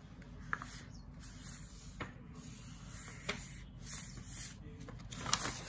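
Thick A4 paper being folded and creased by hand: faint rustling with a few soft ticks.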